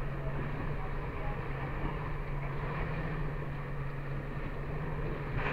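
V6 outboard motor running steadily at cruising speed, holding one low pitch, with water rushing along the hull and wind. A brief knock right at the start.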